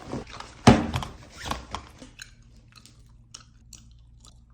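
A person chewing and crunching something crisp close to the microphone: a few sharp crunches in the first two seconds, the loudest under a second in, then softer crackly chewing.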